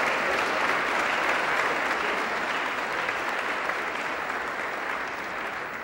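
An audience applauding, the clapping slowly fading toward the end.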